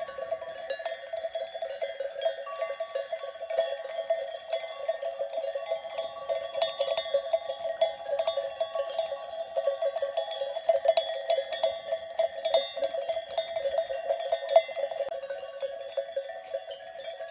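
Many sheep bells on a grazing flock clanking and jangling continuously, overlapping into a steady ringing.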